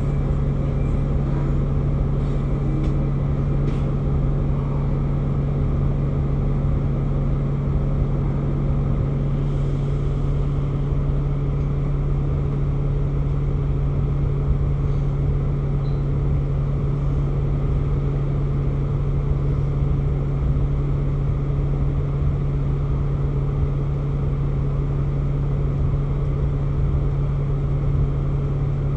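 Ride inside a moving bus: a steady low engine drone with a constant hum, over road noise. A few faint rattles and clicks in the first few seconds.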